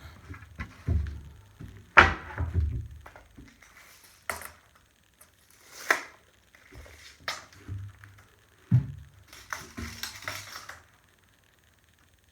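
A series of irregular thunks, knocks and clatter, as of objects being handled and set down, with the sharpest knock about two seconds in.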